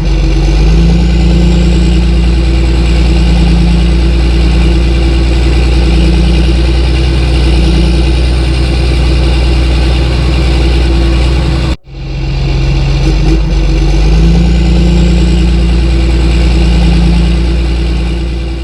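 Engine running steadily with a low, even drone. It cuts off abruptly about twelve seconds in and resumes at once.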